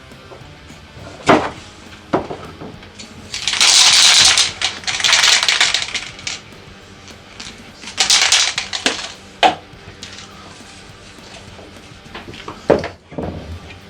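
Hand work at a bench: several sharp knocks and clicks of handling, with two bursts of hissing noise, a longer one about three seconds in and a shorter one about eight seconds in.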